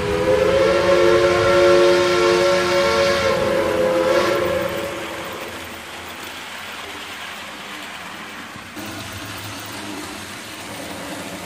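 Steam locomotive whistle blowing one long chord of several tones for about five seconds, then fading, leaving a steady rushing noise.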